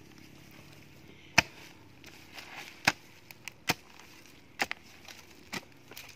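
Hoe blade chopping into dry soil while a planting hole is dug: about six sharp strikes, roughly one a second, the first the loudest.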